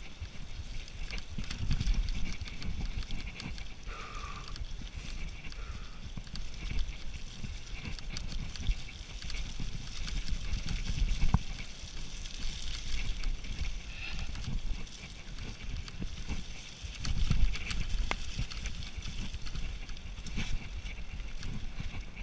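Specialized Demo 7 downhill mountain bike ridden fast down a rocky gravel singletrack, heard from a camera on the bike: tyres crunching over stones, the chain and frame rattling on the bumps, and wind rumbling on the microphone, with a couple of heavier jolts.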